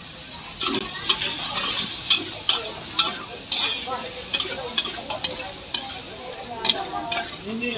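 Vegetables sizzling in a hot wok as a metal ladle and spatula stir them, scraping and clanking against the steel a few times a second. The sizzle comes up about half a second in and holds.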